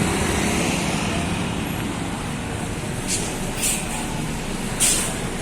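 Buses running in traffic: a steady engine and road rumble, with three short hisses of air about three seconds in, half a second later, and again near five seconds.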